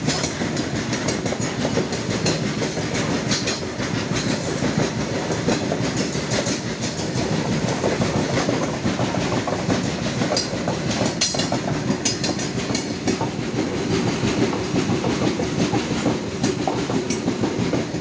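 A freight train's wagons rolling past at speed, very close. The steady rumble of the wagons is broken by a rapid clatter of wheels on the rails.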